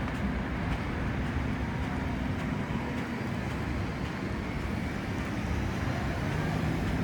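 Steady city traffic rumble with a low, even engine hum and no distinct single event.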